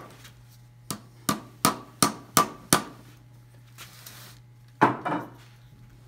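Hammer driving a nail into a wooden block: six quick blows, about three a second, then a brief scrape and one heavier knock near the end.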